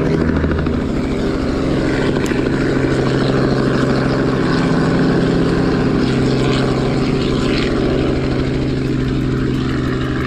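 Low-flying propeller aircraft passing overhead, its piston engine and propeller droning steadily.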